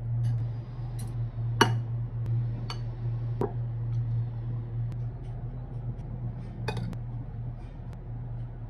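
Metal spoon and fork clinking against a glass bowl and a plate while chicken is turned in beaten egg and flour: several sharp clinks, the loudest about one and a half seconds in, over a steady low hum.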